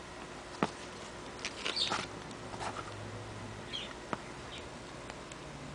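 Pages of a small CD booklet being turned and handled: a few light paper rustles and two soft clicks.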